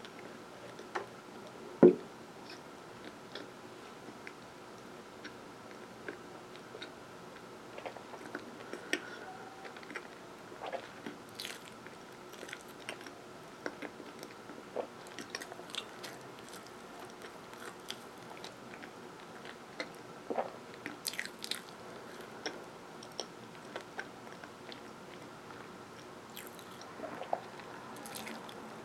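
Close-miked chewing of sesame-topped baked Philadelphia rolls: scattered wet mouth clicks and small crunches at an irregular pace. One sharp, louder sound comes about two seconds in.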